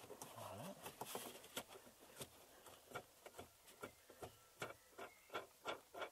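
Faint ticking and clicking from the tail-light wing nut being unscrewed by hand on its stud. The clicks are irregular at first, then settle to about three a second in the second half.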